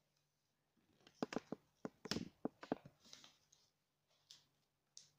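A square of paper being folded and creased by hand on a wooden tabletop into a kite base: a quick run of taps and clicks between about one and three seconds in, then a couple of faint rustles near the end.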